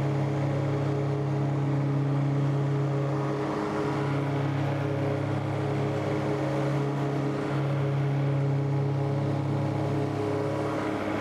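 Tractor engine and PTO-driven 12-foot Woods Turf Batwing rotary mower running steadily while mowing tall, damp grass, a constant drone that wavers briefly a few times.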